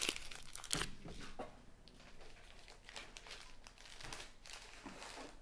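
Small plastic bags of diamond-painting drills crinkling as they are handled. There are a few sharp crinkles in the first second and a half, then fainter rustling.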